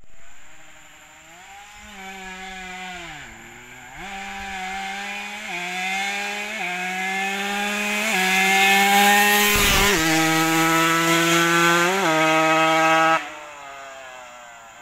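Yamaha 125Z two-stroke single-cylinder motorcycle engine running hard as it approaches, its buzzing note climbing and jumping in steps with the throttle and gear changes and growing louder. About ten seconds in it passes close with a drop in pitch, and near the end the sound falls off abruptly.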